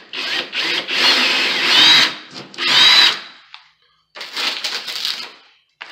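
Ryobi cordless drill with a quarter-inch bit boring a hole into drywall, in three bursts over the first three and a half seconds, its motor whine rising and falling in pitch. A shorter burst of noise follows about four seconds in.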